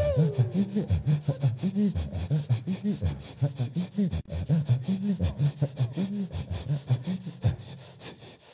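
A cappella vocal bass and mouth percussion into a microphone: a low, bouncing sung bass line under a steady beat of sharp clicks, fading out near the end. At the very start a held high sung note glides down and stops.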